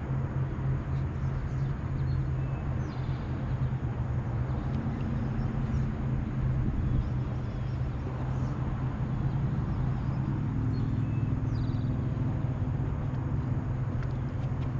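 Bass boat's electric trolling motor humming steadily, with a couple of short high bird chirps about three seconds in and again about ten seconds in.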